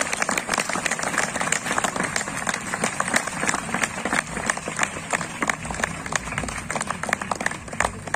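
An audience clapping: many hands applauding in a dense, steady patter.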